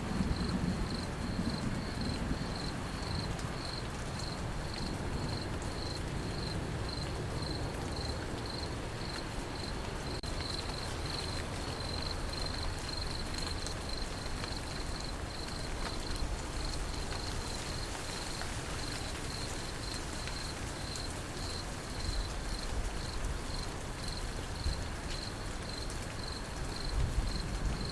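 Crickets chirping in a steady, evenly pulsed high trill over the constant hiss of falling rain; a low thunder rumble dies away at the start.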